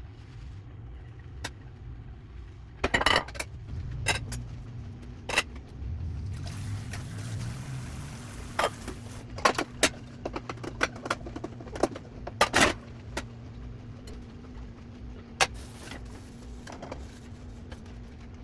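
Scattered clicks, knocks and clinks of household things being handled during cleaning, over a low rumble, with a steady hum coming in about six seconds in.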